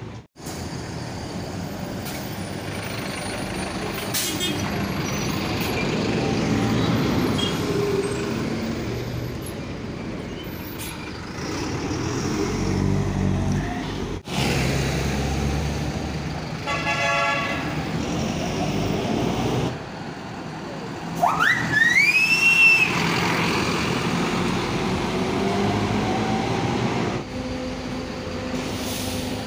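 Diesel city buses running and pulling away in street traffic, across several spliced clips. A short horn-like toot sounds past the middle. The loudest moment is a pitched tone a little later that sweeps up and then falls back.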